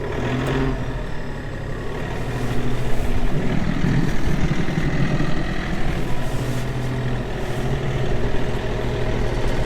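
Kioti compact tractor's diesel engine running at raised throttle, working under load as it pushes through deep snow. It gets louder and rougher for a couple of seconds midway.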